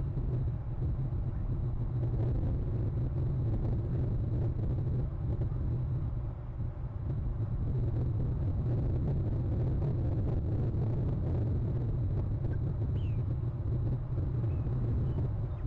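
Steady low outdoor rumble, with a few faint, short, high chirps near the end, one of them gliding down in pitch.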